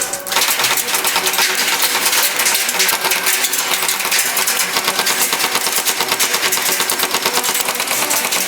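Tokyo Marui AA-12 electric airsoft shotgun firing full-auto in one continuous burst: a loud, rapid, even clatter of shots from its electric gearbox.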